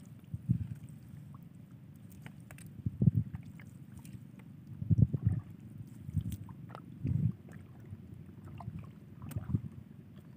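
Water slapping and sloshing against the hull of a small fishing boat, in irregular low thuds every second or two, with faint clicks and knocks between them.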